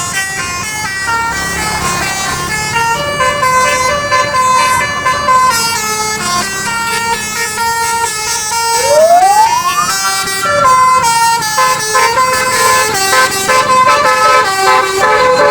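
Basuri telolet bus horn playing a melody: a run of horn notes stepping up and down, often several sounding together, with one quick rising glide about nine seconds in.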